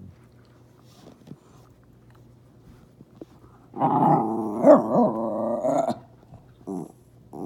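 A dog growling for about two seconds, starting a little before the middle, then one short growl near the end.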